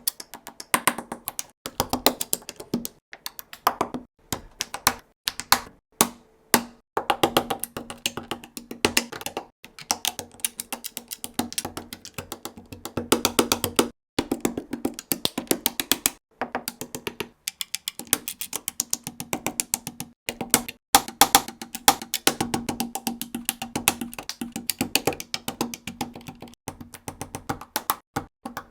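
Rapid, irregular clicking and tapping of plastic Lego bricks being snapped together, broken by a few brief pauses, with music underneath.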